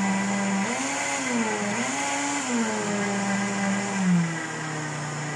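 Astron heavy-duty 1500-watt blender motor running while blending a smoothie. Its pitch rises and dips twice in the first three seconds, then drops to a lower steady hum about four seconds in as the speed dial is turned down.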